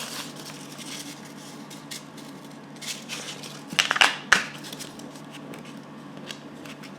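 Opal stone rubbed by hand on dry sandpaper at the start of sanding, likely the 800-grit sheet: faint gritty scraping strokes, with a louder cluster of rasps about four seconds in, over a steady low hum.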